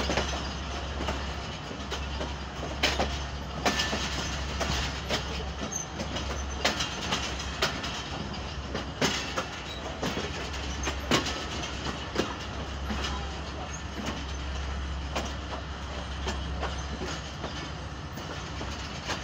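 Passenger train coach rolling slowly over the rails, heard from its open window: a steady rumble with irregular sharp clacks as the wheels run over rail joints and points.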